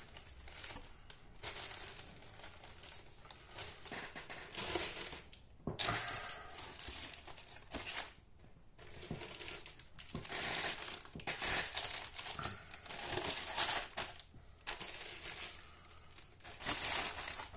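Clear plastic bags around model-kit sprues crinkling and rustling in irregular bursts as the plastic sprues are handled and put back into the kit's cardboard box.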